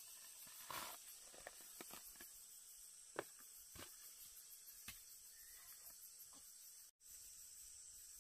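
Metal spade digging into earth and tipping soil into a plastic basin: a handful of separate sharp knocks and a short scrape over the first five seconds. Behind it, a steady high chirring of insects.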